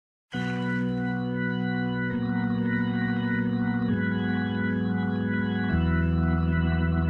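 Organ playing slow, sustained chords, changing chord about every two seconds. It starts abruptly out of silence.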